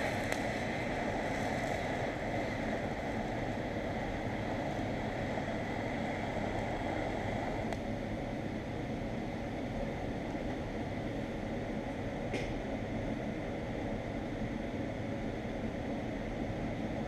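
TIG welding arc buzzing steadily while two extra heavy 5/8 steel nuts are fused together, with a faint click about twelve seconds in.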